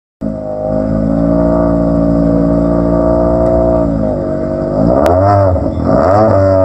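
Rally car engine running at steady raised revs, then revved up and down several times from about four seconds in, with one sharp crack about five seconds in.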